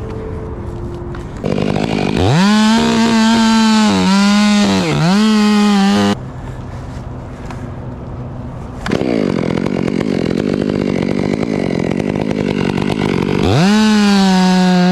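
Two-stroke chainsaw revved to full throttle, its pitch dipping twice as it bogs under load in a cut, then dropping back to a lower running sound. It revs up high again near the end.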